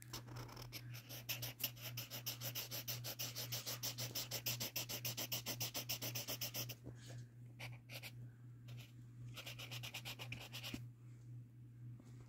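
Marker tip scratching quickly back and forth on sketchbook paper while colouring in, several strokes a second. One long spell is followed after a short pause by a briefer one near the end.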